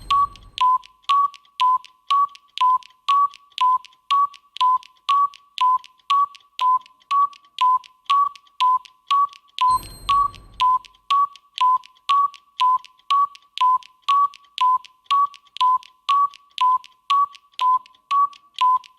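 Countdown timer sound effect: short electronic tick-tock beeps, about two a second, alternating between two close pitches. A brief chime with a low thump marks the start and sounds again about ten seconds in.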